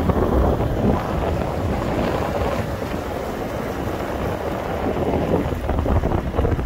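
Wind rushing over the microphone of a camera held out of a moving vehicle's open window, over a steady low rumble of the vehicle rolling along a gravel road.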